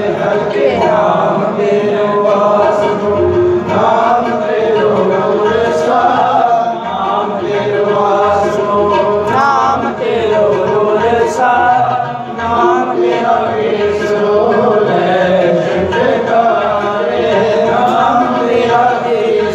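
Sikh devotional hymn singing (Gurbani kirtan): voices chanting a continuous melodic line without pause.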